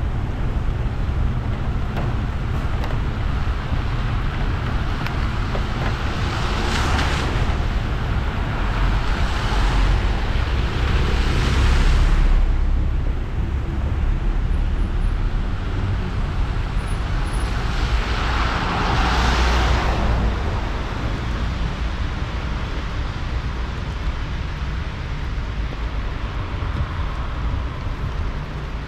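Car driving on wet city roads in the rain: a steady low rumble with tyre hiss, and several swelling whooshes of traffic passing on the wet road.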